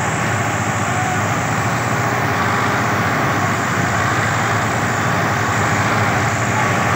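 Several diesel farm tractors, a Swaraj 744 FE among them, running together in a steady mixed engine drone with a heavy low rumble while they are hitched in a chain to pull out a stuck combine harvester.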